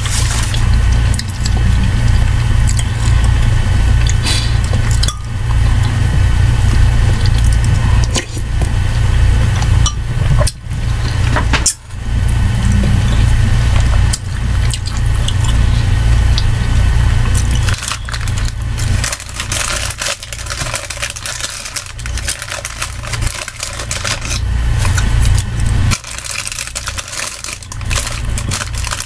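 Close-miked eating sounds from soup in a ceramic mug: spoon clinks, slurping and chewing, with scattered sharp clicks. A loud, steady low hum runs underneath.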